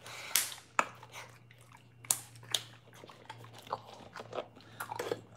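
Boxer dog chewing a hard dog biscuit: a string of irregular crunches and clicks.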